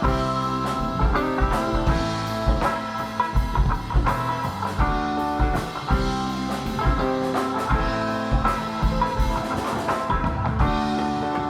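Band music: electric guitar over a drum kit playing a steady blues-rock groove, with no singing.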